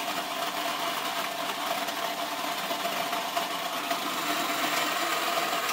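Small electric motor inside a Shoot 'em Up Gunslinger toy running with a steady hum while its mechanism resets the knocked-down figure, cutting off suddenly at the end.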